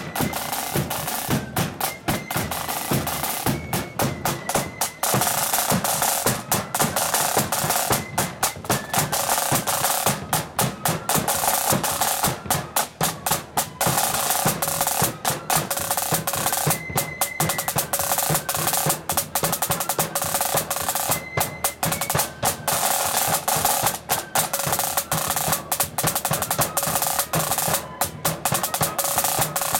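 Marching band side drums played fast with rapid rolls, backed by a bass drum.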